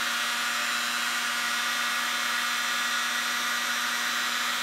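Electric heat gun running steadily: the rush of its fan blowing hot air over a steady motor hum. It is heating the end of an RC drive shaft to expand the pin hole before a new cross pin is pressed in.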